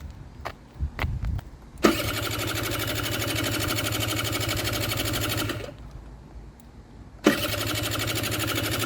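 Kymco Super Fever ZX 50cc two-stroke scooter engine firing up after a few seconds of tries, running steadily for about four seconds, dying away, then starting again. The stalling is from the engine not getting enough fuel, which the owner puts down to the carburetor's air screw setting.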